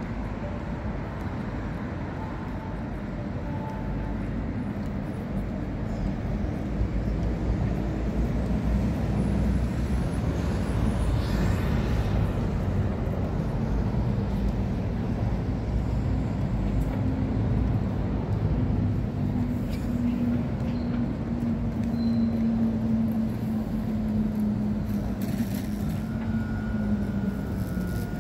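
Steady city road traffic: cars and buses running. In the second half a vehicle engine hums at a steady pitch, then drops slightly near the end.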